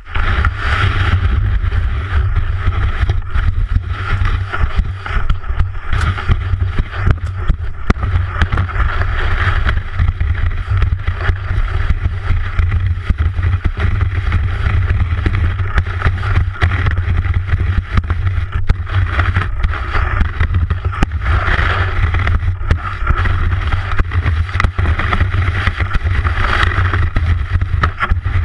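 Skis sliding and scraping over snow, with a steady low rumble of wind buffeting the camera's microphone.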